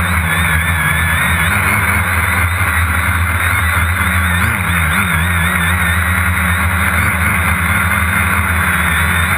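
Multirotor drone's electric motors and propellers running close to the onboard camera: a steady loud hum with a high whine that wavers up and down in pitch as the motors change speed.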